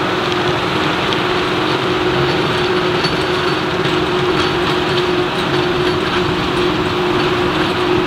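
John Deere 4066R tractor's diesel engine running steadily under load while driving a rear-mounted rotary tiller through the soil: a steady hum over a dense, even churning noise.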